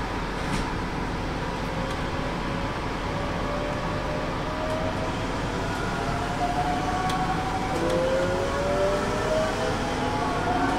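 Hokuso Railway 7300 series electric train pulling away from a station, its Toyo late-type GTO-VVVF inverter whining in several tones that climb steadily in pitch as the train gathers speed. The whine begins about three seconds in, over steady running noise.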